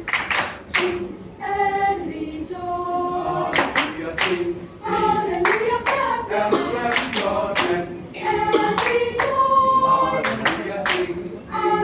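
Children's choir singing a cappella, held notes moving from one pitch to the next.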